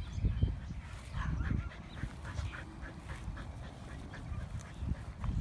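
Siberian husky whining in short, high whimpers, heard over a low, uneven rumble.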